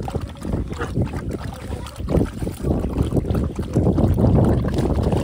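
Several dogs lapping milk from a plastic tub, with irregular wet slurping strokes. Wind buffets the microphone in a steady low rumble.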